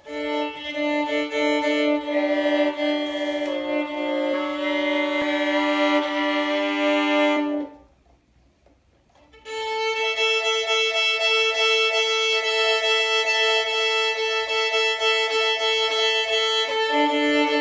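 Solo violin played with the bow: a slow melody of held notes, a pause of about two seconds midway, then long sustained notes.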